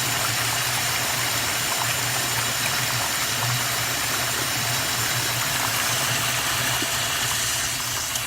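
Hose-pressure water rushing through the bowl of a 1992 Universal-Rundle Atlas toilet in a steady gush with a low hum, easing off at the very end.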